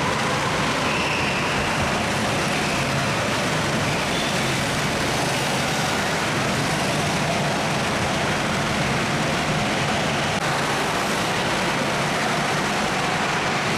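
Several go-karts driving laps on an indoor track, their engines running together as a steady noise that fills the large hall, with faint wavering engine tones over it.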